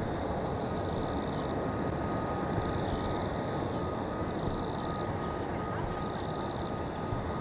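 Airbus A320neo's jet engines heard at a distance: a steady rumble with a thin steady whine over it. High chirring comes and goes above it every second or so.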